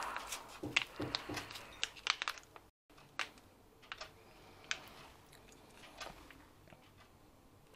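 A soft plastic pouch of tomato paste crinkling as it is squeezed hard onto a metal tablespoon, with faint scattered clicks and scrapes of the spoon; the thick paste is slow to come out.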